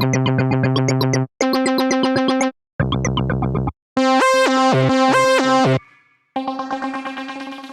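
Software synthesizer presets from Arturia's V Collection playing short pitched phrases one after another, each stopping abruptly before the next begins; the last fades out slowly near the end.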